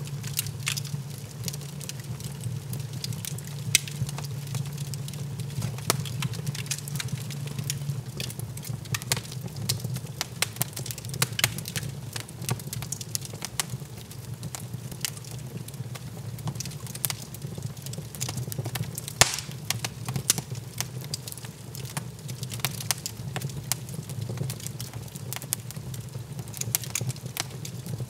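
Wood fire crackling in an open fireplace: frequent irregular snaps and pops from the burning logs, over a steady low hum.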